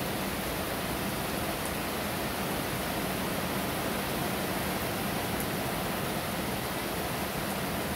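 Heavy rain falling in a steady downpour, an even hiss of water that does not let up.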